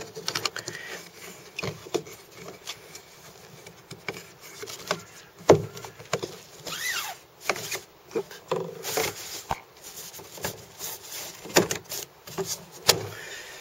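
Hands working the round plastic twist-lock hatch cover of a Cambridge Kayaks Barracuda fishing kayak: scattered clicks, knocks and rubbing as the lid is turned and handled, with a brief squeak about seven seconds in.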